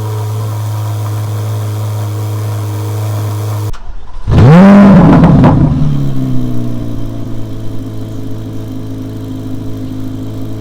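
Chevrolet C8 Corvette Z06's flat-plane-crank V8 idling steadily, then about four seconds in a single quick throttle blip that revs up sharply and falls back to idle.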